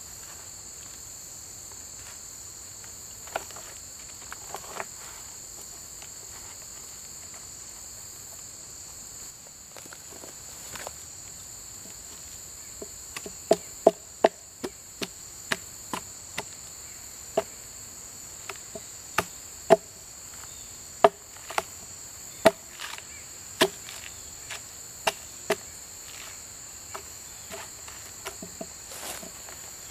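Hatchet striking the bark of a fallen log in sharp, irregular knocks: a few early on, then about one a second through the second half, as the bark is worked loose for roofing. Insects trill steadily underneath.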